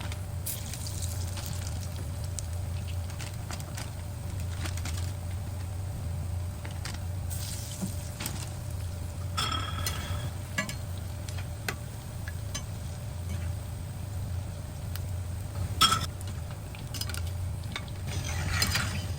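A metal utensil scraping and clinking against a cooking pot, in scattered short strokes with two ringing clinks, over a steady low hum.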